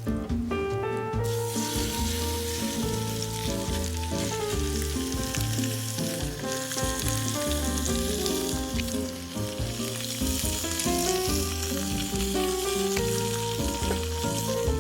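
Food sizzling and crackling as it cooks over a campfire, starting abruptly about a second in, over background music with a steady melody.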